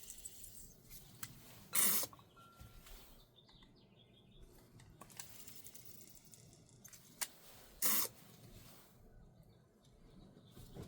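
Syringe drawing ink and sludge out of an HP 950 printhead's ink chambers: two short sucking hisses about six seconds apart, with small plastic clicks between them.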